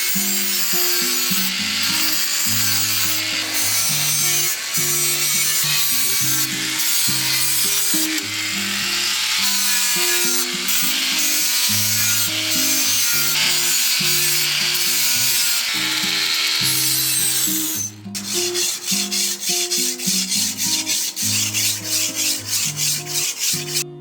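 Rasping of a steel knife blade being filed, over background music with a stepped bass line. About three quarters of the way through the rasping turns into regular back-and-forth strokes, about four a second.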